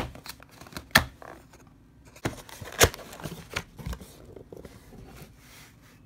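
A cardboard box being opened by hand: the lid's tuck flap is worked free and the lid lifted, with cardboard scraping and rustling and a few sharp taps and knocks. The loudest are about one second and about three seconds in.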